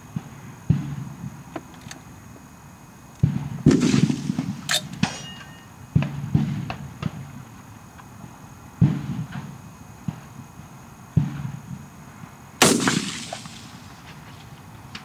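Rifle shots from a .223 DPMS AR-15, about half a dozen sharp reports a couple of seconds apart, each trailing off in an echo, with the loudest near the end.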